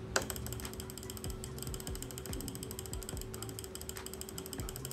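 Cheap Zebronics wired gaming mouse's button clicked as fast as possible, a rapid, even run of sharp clicks at about six or seven a second.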